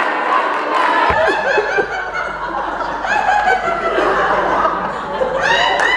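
A roomful of people laughing together, many voices overlapping in short repeated peals, with a louder burst of laughter near the end.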